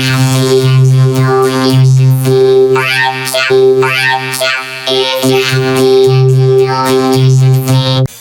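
Synthesizer music: sustained electronic notes over a steady low drone, with a few sweeping pitch slides, breaking off near the end.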